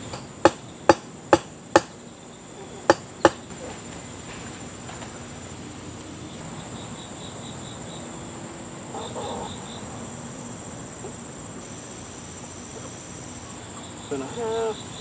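Six sharp knocks within the first few seconds, four about half a second apart and then two close together. Insects keep up a steady high chirping throughout, with short runs of rapid chirps later on.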